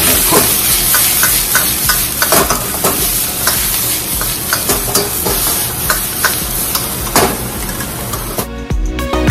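String beans, garlic and ground pork sizzling in hot oil in a wok as they are stir-fried and tossed, with a metal ladle repeatedly clicking and scraping against the wok. Near the end the sizzling cuts off and background music takes over.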